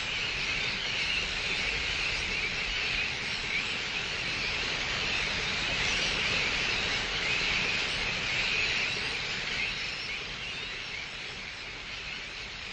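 Many birds calling at once in a steady chattering mass over a hiss, easing off near the end.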